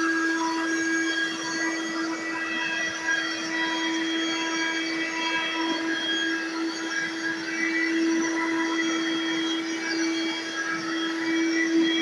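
Corded stick vacuum cleaner running steadily, a constant motor tone with a higher whine over it, as its floor head is pushed along a hardwood floor.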